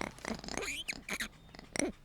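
A young pet animal making a quick run of short squeaks and small vocal sounds, over a faint steady low hum.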